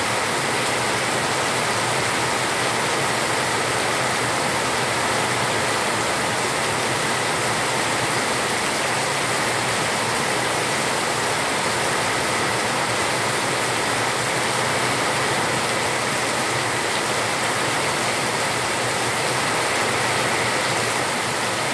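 Heavy rain pouring steadily onto a concrete yard.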